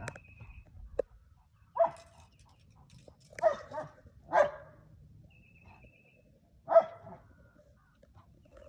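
A dog barking four times, the barks a second or two apart.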